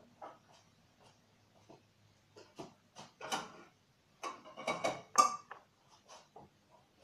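Light taps and clinks of small glass items being handled at a table, with a louder cluster of clinks about four to five and a half seconds in.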